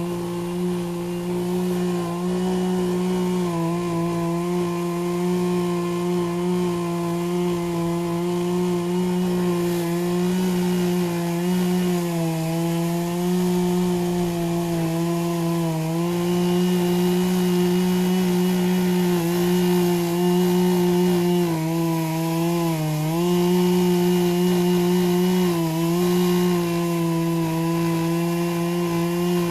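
Poulan 18-inch two-stroke gas chainsaw running at high speed and cutting into a tree stump, its steady note sagging briefly a few times as the chain bites under load.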